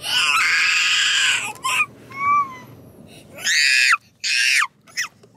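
A toddler screaming and crying in loud, high-pitched shrieks: one long scream at the start, then two shorter cries past the middle.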